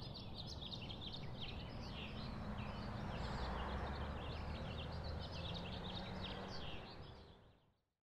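A chorus of small birds chirping and twittering over a steady low background noise, fading out near the end.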